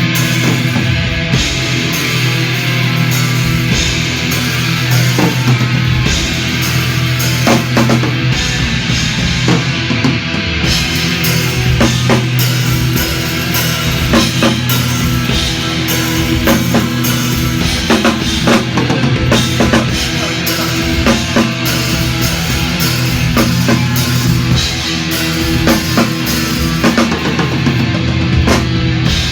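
Loud rock music from a full band: a drum kit keeping a steady beat under electric guitar.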